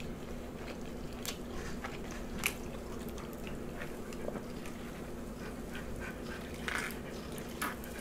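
Chewing and soft, scattered mouth clicks of someone eating, over a faint steady hum.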